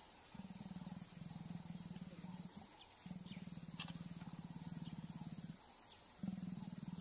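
Mating leopards growling: a low, rapidly pulsing rasp in three long stretches, breaking off briefly about two and a half seconds in and again near six seconds.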